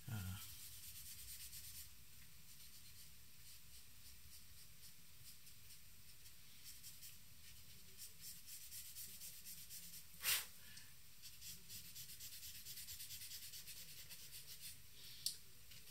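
Paper blending stump rubbing charcoal into drawing paper: a faint, fine rubbing with small irregular strokes. A sharp click about ten seconds in and a shorter one near the end.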